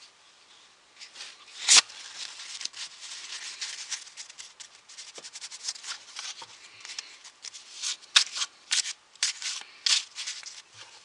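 A deck of playing cards being shuffled and handled: card edges sliding and rubbing against each other in a steady rustle. Sharp snaps of cards come about two seconds in, the loudest, and several more between about eight and ten seconds.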